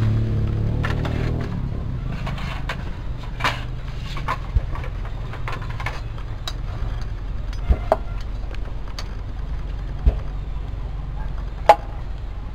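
Plates and kitchenware being handled on a wooden counter: scattered sharp knocks and clinks, the loudest near the end, over a steady low rumble.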